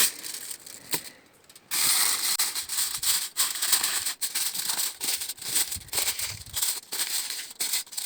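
Aluminium foil crinkling and rustling in irregular bursts as it is pressed and folded over the rim of a baking tin, with a short pause about a second in.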